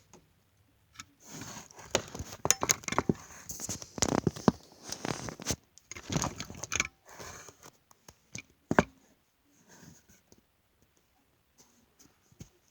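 Toy packaging being handled: plastic and cardboard crinkling and scraping with sharp clicks and knocks, busiest in the middle and fading to a few faint taps near the end.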